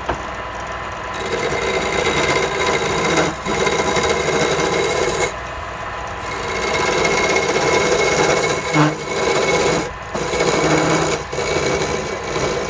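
Wood lathe running with a steady hum while a turning tool cuts into the spinning wood in scraping passes of a few seconds each, with short breaks between them.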